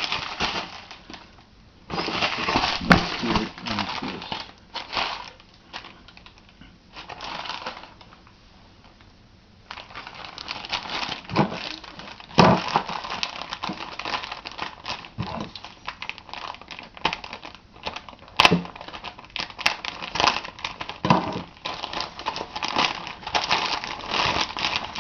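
Packaging being handled and opened by hand: irregular crinkling, rustling and clicking, with a quieter lull for a few seconds partway through.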